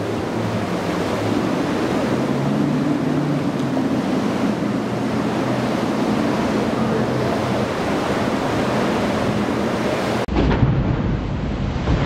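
Rough surf churning and breaking, with the low, steady drone of a Grady White Freedom 285's twin outboard motors underneath. About ten seconds in the sound changes abruptly to a heavier, deeper rumble of spray and engine.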